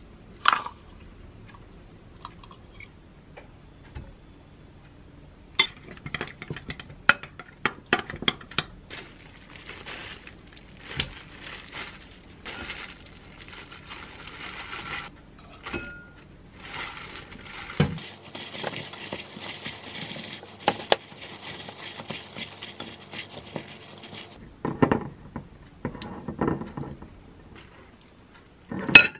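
Metal spoon clinking and scraping against a glass mixing bowl in a run of sharp, irregular clinks, and a hand in a plastic glove mixing noodles with sauce in the bowl.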